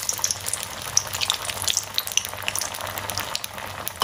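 A bread and poha vada deep-frying in hot oil in a kadai, just lowered in: steady sizzling with many small crackles and pops as moisture boils off the fresh vada.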